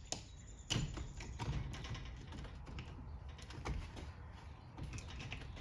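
Irregular light metal clicks and taps of a pry tool working at the cut steel cage of a differential carrier bearing, prying the cage and rollers apart, with one louder knock about three-quarters of a second in.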